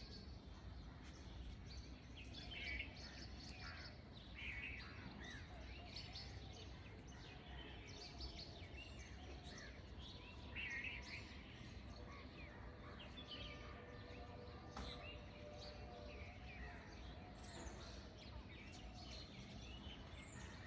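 Faint birdsong: scattered short chirps and calls from small birds, repeating throughout over a low, steady background noise.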